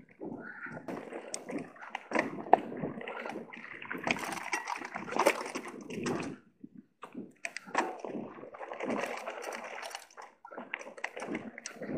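Mountain bike riding a rough dirt trail: tyres rolling and crunching over the ground, with frequent knocks and rattles from the bike over bumps, easing off briefly twice.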